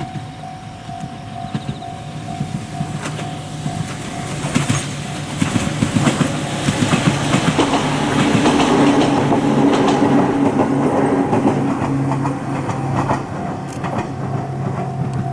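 Ohmi Railway 800-series electric train (set 809F) running past, with a steady motor hum and wheels clacking over rail joints. It grows louder to a peak around the middle, then eases off near the end.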